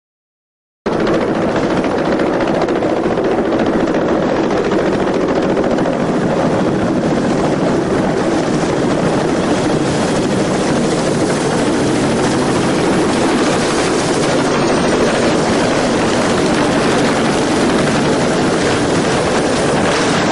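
Steady, loud helicopter rotor and engine noise, starting after a short silent gap at the beginning.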